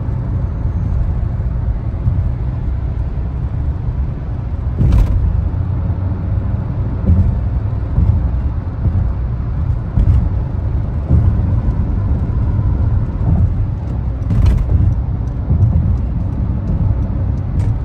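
Steady low rumble of road and engine noise inside a car cabin at highway speed. Two brief knocks stand out, one about five seconds in and another about fourteen seconds in.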